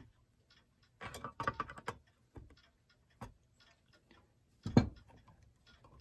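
Needle-nose pliers working a thin metal tab on a clock's metal frame: scattered small metallic clicks, with a dense run of clicks and scrapes about a second in. A dull thump near the end is the loudest sound.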